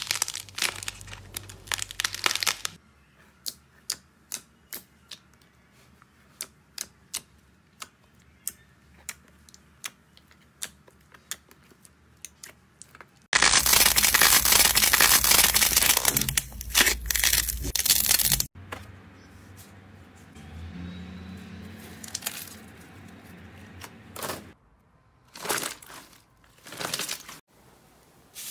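Slime being pressed and squeezed by hand in a run of short ASMR clips. It starts with dense crackling, then sparse sharp pops, then a loud stretch of dense crackling lasting about five seconds, and ends with softer crackles and short bursts.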